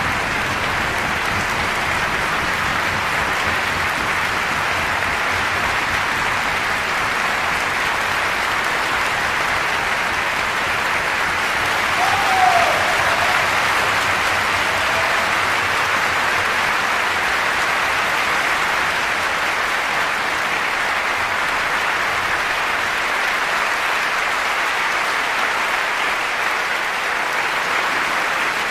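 Concert-hall audience applauding steadily after an orchestral symphony performance. A short call rises above the clapping about twelve seconds in.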